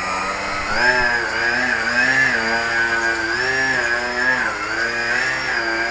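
Car engine held at high revs, its pitch climbing about a second in and then swinging up and down roughly once a second.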